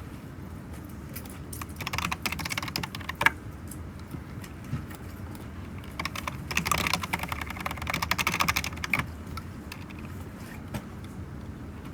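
Typing on a computer keyboard in two quick runs of key clicks, one about two seconds in and a longer one from about six to nine seconds, over a steady low room hum.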